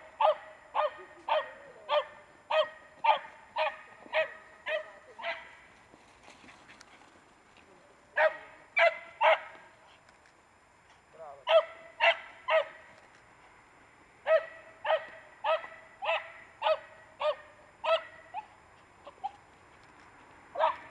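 Small dog barking at sheep as it herds them: sharp, high-pitched barks at about two a second, in runs broken by short pauses, with a single bark near the end.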